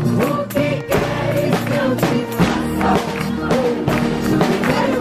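Portuguese-language gospel chorus sung by a group of voices, with instrumental accompaniment and a steady percussive beat.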